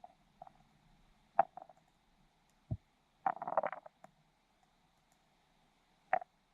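Muffled underwater gurgles and knocks heard through a submerged camera in a pool: a sharp pop, a low thud, a short bubbly burst in the middle and one more pop near the end, over a faint steady hum.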